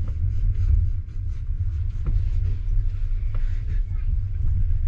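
Passenger train moving off slowly: a steady low rumble with wind on the microphone, and scattered short knocks at uneven intervals.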